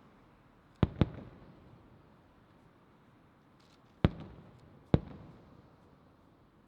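Aerial firework shells bursting: four sharp bangs in two close pairs about three seconds apart, each trailing off in a rumbling echo.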